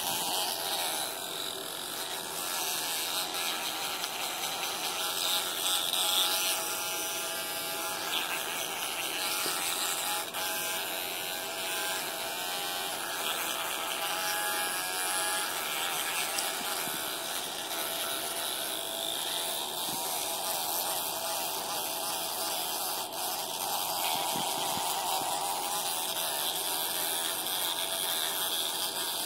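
Electric toothbrush running with a steady buzz while a capuchin monkey holds its head in his mouth, brushing and chewing on it.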